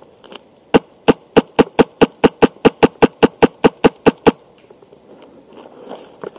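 Airsoft rifle with a Wolverine Inferno Gen 2 HPA engine firing a steady string of about twenty shots, about six a second. The string starts about a second in and stops after roughly three and a half seconds. Each shot is a sharp, loud clack.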